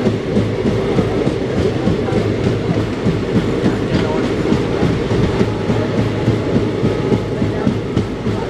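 Passenger train running along the track, its coach wheels clattering over rail joints in a rapid, regular rhythm over a steady low rumble.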